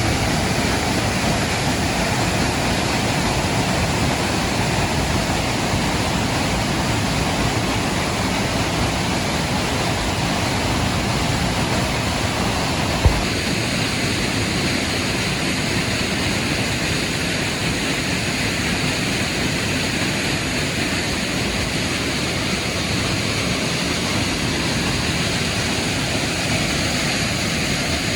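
Waterfall: a loud, steady rush of falling water. About halfway through, a brief low thump comes, and after it the rush sounds brighter and hissier.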